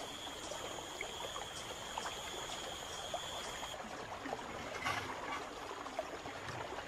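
Swollen, flooded rainforest river flowing, a steady rushing and trickling of water with small scattered ticks. A steady high-pitched tone sounds over it and stops about four seconds in.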